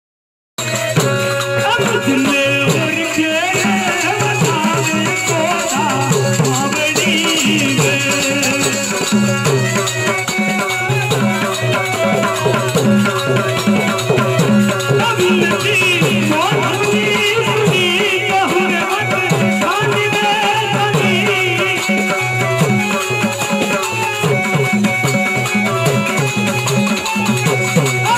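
Gujarati folk raas music: a steady, regular drum beat and percussion under a melody line. It starts after a half-second gap of silence.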